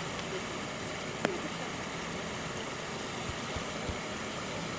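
Steady background noise with one sharp click about a second in and a few faint low thumps later on.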